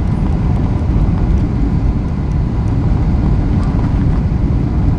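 Boeing 737-800 cabin noise on approach: a steady low roar of engines and airflow, heard inside the cabin.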